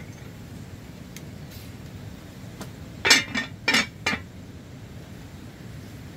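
Four short clinks of hard objects knocked together, bunched within about a second, the first the loudest.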